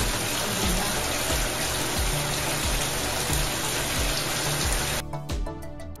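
Shower water running in a tiled stall, a steady hiss, over background music with a steady beat. The hiss cuts off suddenly about five seconds in, leaving the music.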